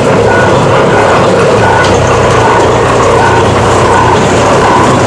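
Motor-driven clay-refining machine, an old horse-drawn mill converted to an engine drive in the 1950s, running steadily as it works lumps of wet clay. It makes a loud, even mechanical rumble with a faint beat about twice a second.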